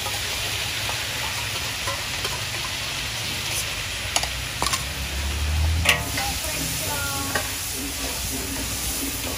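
Squid and sauce sizzling in a hot wok as the sauce goes in and is stirred, a steady frying hiss. A metal spatula scrapes and clinks against the wok a few times in the middle.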